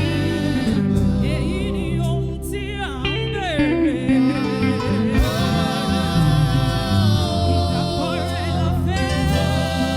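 Gospel music with a lead singer's voice over a band with steady bass.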